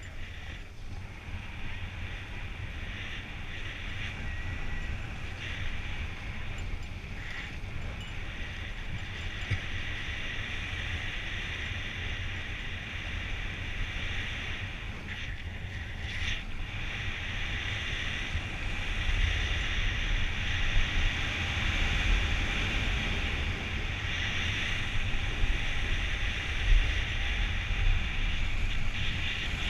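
Snowboard sliding down groomed snow: a steady hiss of the board scraping over the snow, over a low rumble of wind buffeting the microphone. It grows louder about two-thirds of the way through.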